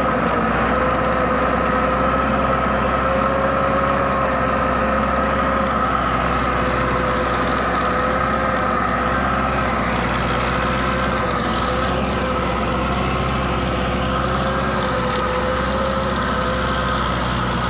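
Farm tractor engine running steadily under load while driving a rear-mounted rotary tiller that forms raised planting beds, with a steady high whine over the engine noise.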